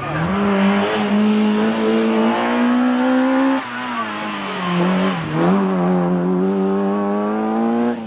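Peugeot 205 rally car's four-cylinder engine running at high revs, its pitch climbing slowly. It drops suddenly about three and a half seconds in, dips briefly again around five seconds in, and climbs back.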